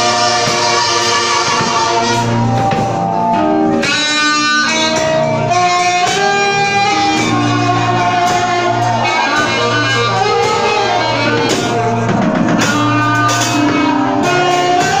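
Live gospel worship music from a band: a saxophone carries a melody of long held notes, some gliding between pitches, over steady bass and drums.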